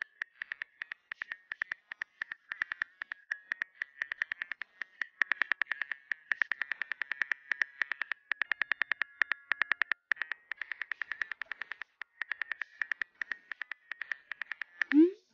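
Phone keyboard clicks of rapid typing, several taps a second in uneven bursts. Near the end a short rising whoosh as the message is sent.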